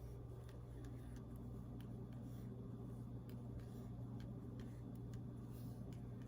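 Quiet room tone: a steady low electrical hum with faint, scattered clicks.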